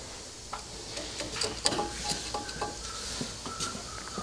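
Light metallic clicks and scrapes of a steel digital caliper being handled and set against a valve in an aluminium cylinder head, with a few short ringing clinks, as a valve height measurement is re-checked.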